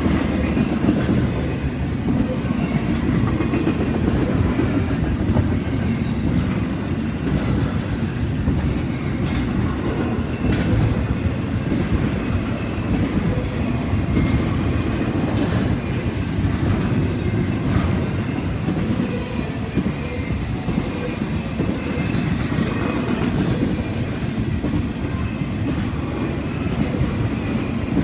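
Norfolk Southern freight train's cars rolling steadily past, a continuous low rumble with clickety-clack of wheels over rail joints.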